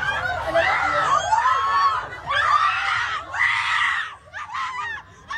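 Teenagers screaming and shouting in repeated high-pitched bursts during a street brawl, heard through a phone's video recording.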